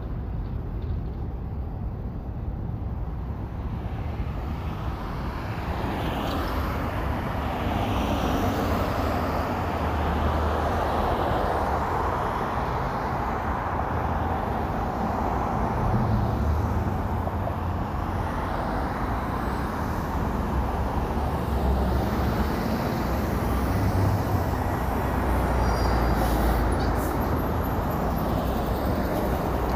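Road traffic noise: a steady wash of tyre and engine sound from passing vehicles. It grows louder about six seconds in and swells again later as nearer vehicles go by.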